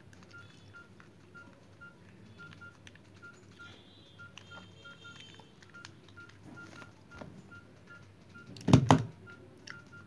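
Plastic 3x3 speed cube being turned by hand with faint clicks, then a loud double thump about nine seconds in as the cube is put down on the table. A faint high beep repeats two or three times a second throughout.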